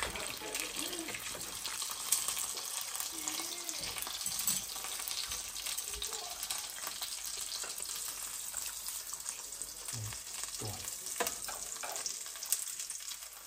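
Egg frying in a nonstick pan, a steady sizzle, with a few light knocks near the end as the egg is worked with a wooden spatula and chopsticks.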